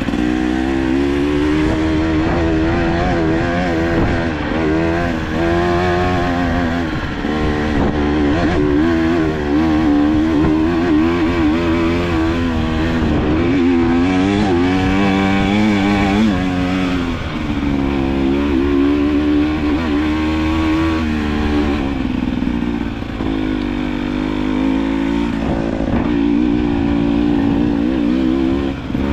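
KTM EXC 300 TPI two-stroke enduro motorcycle engine being ridden, its revs rising and falling continuously as the throttle is worked, with a few brief easings off.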